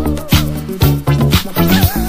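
Background music with a steady drum beat, bass line and a wavering melody.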